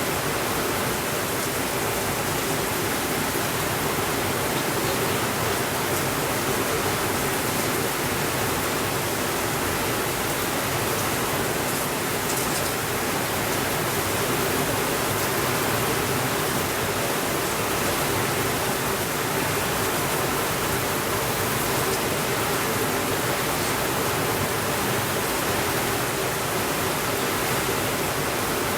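Steady, even rainfall with no thunder.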